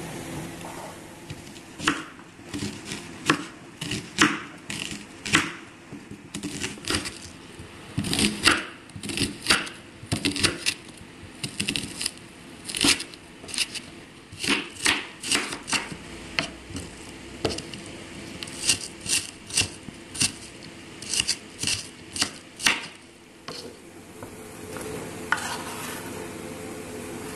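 Kitchen knife chopping an onion on a wooden cutting board: a sharp knock with each stroke, irregular and sometimes several a second. Near the end comes a short scrape as the chopped onion is pushed off the board into a bowl.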